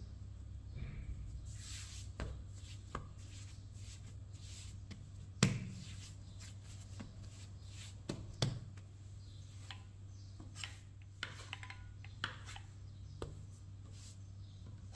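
Hands kneading and shaping bread dough on a countertop: soft rubbing and light pats, with a sharp knock about five seconds in and two more around eight seconds, over a steady low hum.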